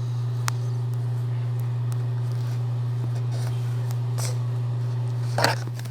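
A steady low hum, with a faint click about half a second in and a short sharper sound near the end.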